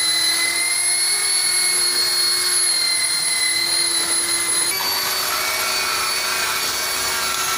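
Electric car polishing machine running steadily with a foam buffing pad on the paint, a constant motor whine. About two-thirds of the way through the whine steps slightly higher as a second polisher takes over.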